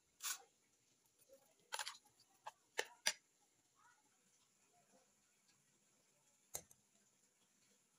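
A few short, sharp clicks from a metal spoon knocking and scraping against a ceramic dish while raw chicken pieces are mixed, mostly in the first three seconds, with one more knock near the end, against near silence.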